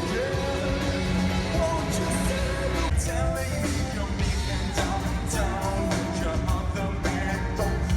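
A pop-rock song with a singer over a steady beat of drums and bass.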